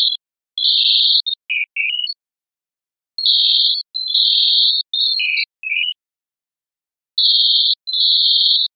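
Computer motion sonification from a Max/Jamoma sonifyer module, turning movement in the video image into synthetic tones: clusters of high beeping tones, some longer and some short blips dropping slightly in pitch, separated by gaps of silence.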